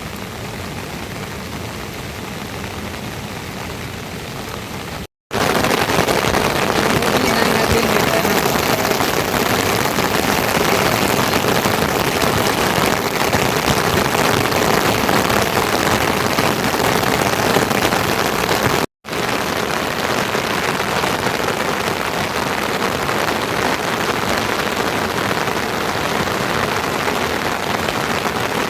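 Heavy rain falling as a steady, even hiss, cut off abruptly twice, about five seconds in and again near nineteen seconds. It is noticeably louder in the middle stretch between the cuts.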